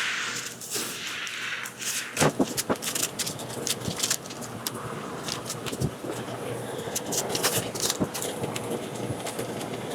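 Blue painter's tape being pulled off the roll and torn, giving irregular crackling rips and clicks. A faint steady hum starts about four seconds in.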